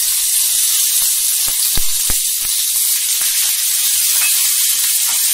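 Curry leaves, green chillies and mustard seeds sizzling in hot oil for a tadka: a steady hiss with scattered crackling pops, two louder pops about two seconds in.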